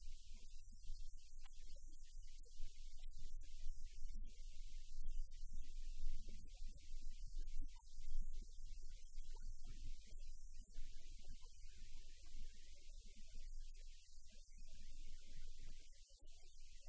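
A low rumbling hum that rises and falls unevenly in loudness, with a faint hiss above it.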